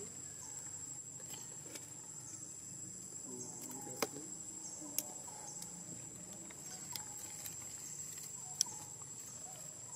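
Insects buzzing with a steady high-pitched drone, with a few sharp clicks standing out above it.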